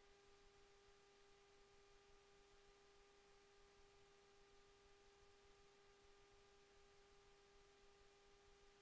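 Near silence: a faint steady hum with a light hiss beneath it, unchanging throughout.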